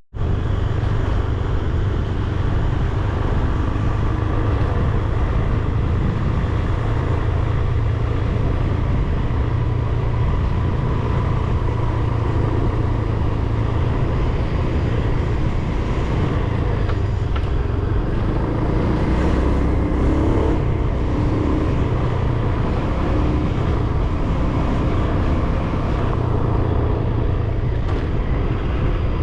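Motor scooter riding along a road: steady engine and road noise with a heavy low rumble.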